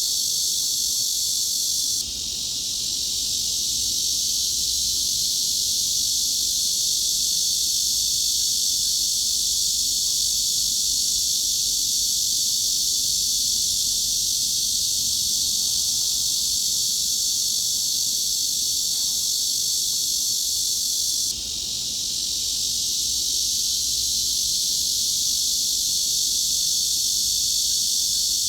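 Steady, high-pitched cicada drone played as a tinnitus masking sound, an even hiss-like buzz with no pulsing. It dips briefly about two seconds in and again near the end, swelling back each time.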